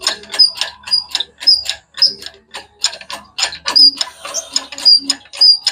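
Hand-worked lifting gear being cranked in quick strokes as an engine and transmission are lifted: a metallic ratcheting click with a short high squeak, about twice a second.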